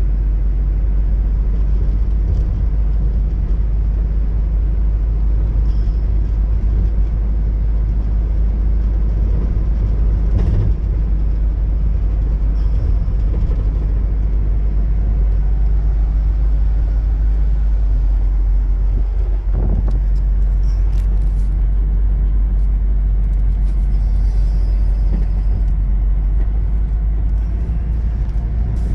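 2000 Nissan Frontier XE pickup on the move: a steady low rumble of road noise and its four-cylinder engine running.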